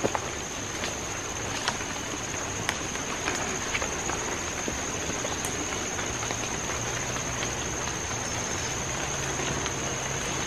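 Footsteps and small snapping twigs on a muddy forest trail, as scattered clicks over a steady hiss, with a constant high-pitched insect buzz held throughout.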